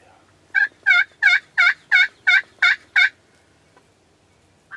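A series of nine loud turkey yelps, evenly spaced at about three to four a second.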